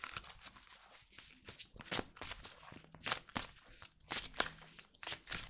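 Tarot cards being shuffled and handled, a run of irregular soft slaps, clicks and rustles of card stock.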